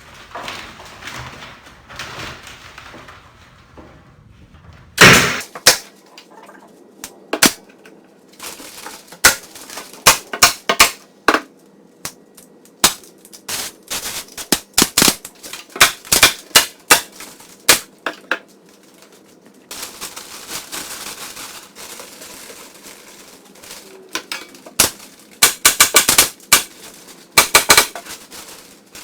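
Staple gun shooting staples through plastic sheeting into wood: a long, irregular series of sharp shots, some in quick clusters.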